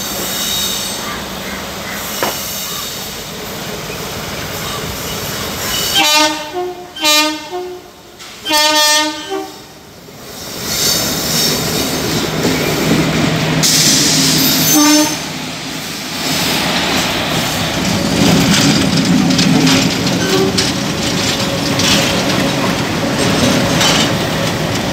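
Indian Railways diesel locomotive horn sounding three blasts about six to nine seconds in, then one short toot a few seconds later. After the horn, the loud, steady rumble of the double-headed diesel locomotives grows as they run past at close range, with clicking from the wheels on the rails.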